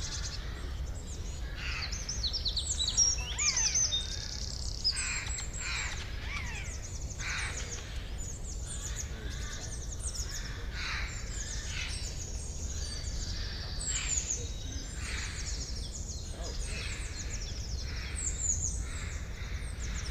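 Several birds chirping and singing at once, dense overlapping short calls and quick sweeping notes, over a steady low background rumble.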